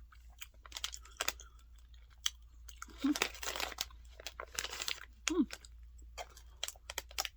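Plastic candy packaging crinkling and rustling in short bursts, with scattered clicks and two brief hummed vocal sounds.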